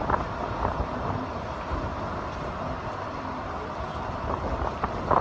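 Steady outdoor city rumble of traffic, with wind on the microphone and a few light knocks and clicks.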